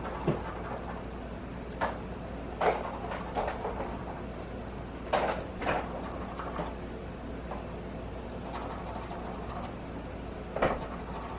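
Scratch-off lottery ticket being scratched: short scraping strokes in irregular bursts with pauses between.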